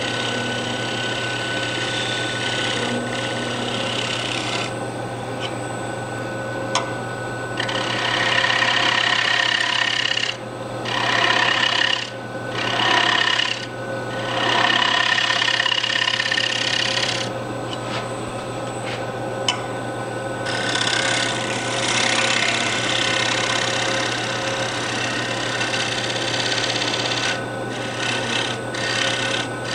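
Negative rake scraper taking a light finishing cut on a wooden bowl spinning on a wood lathe: a steady scraping hiss of wood shavings coming off. It stops and starts again several times, over a steady low hum that carries on throughout.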